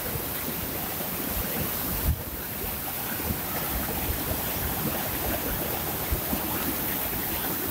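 Silt-laden glacial meltwater river rushing over boulders in rapids, a steady loud roar of water. Wind buffets the microphone with irregular low rumbles underneath.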